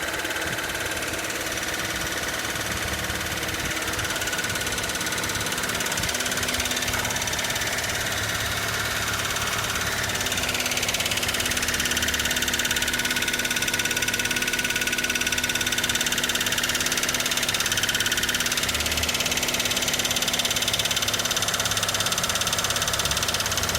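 Toyota 1ZZ inline-four engine running at idle with a knock in it. The owner traces the knock to the left side, near the gearbox, rather than to the engine itself.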